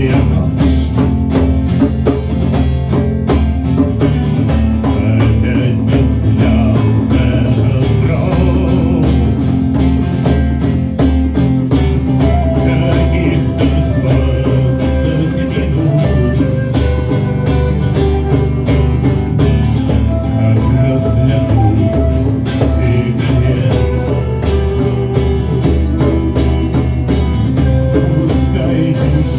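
A live band playing a song: guitar over a steady drum beat, with a sustained melody line through the middle and later part.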